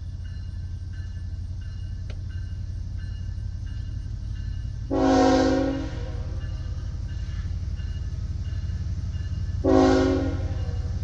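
CSX diesel locomotive's air horn sounding two blasts about five seconds apart, each about a second long, over a low steady rumble; the horn is sounding for a grade crossing as the train approaches.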